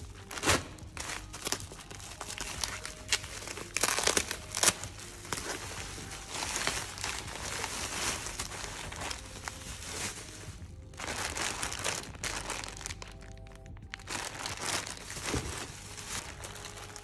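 Plastic bubble wrap crinkling and rustling as it is handled and pulled out of a cardboard box, with a few sharp louder crackles about half a second in and around four seconds in.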